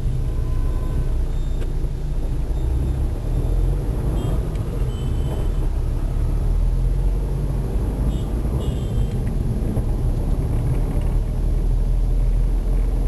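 Car in motion, heard from inside the cabin: a steady low rumble of engine and road noise.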